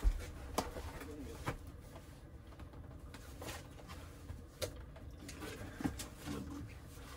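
A dog's soft cooing whines, a few short ones, mixed with sharp knocks and a thump right at the start as the dogs are lifted down from a raised bunk bed.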